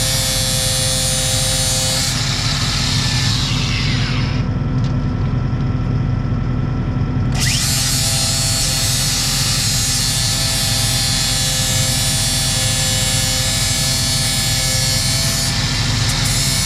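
An electric grinder running steadily while grinding the steel edge of a rotary mower blade to sharpen it. The harsh grinding hiss drops away for about three seconds, starting some four seconds in, while the motor keeps running, then comes back.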